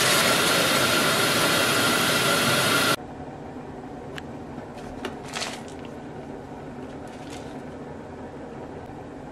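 Tap water running hard into a stainless steel pot in a sink, cutting off suddenly about three seconds in. After it comes a quiet steady hum with a few light crinkles and taps as a plastic-wrapped instant ramen cup is handled.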